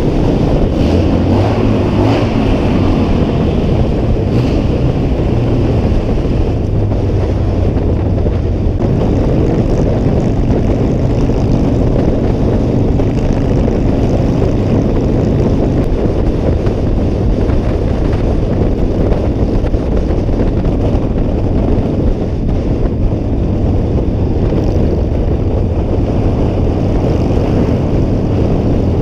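Harley-Davidson Sportster's air-cooled V-twin running at cruising speed, heard from the rider's seat, with wind rushing over the microphone. The engine note shifts up and down a few times.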